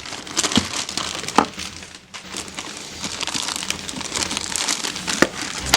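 Plastic packaging crinkling and rustling as the figure's parts are unwrapped, with a few sharp clicks.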